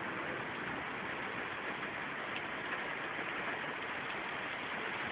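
Heavy rain pouring down in a steady, even hiss, with water running.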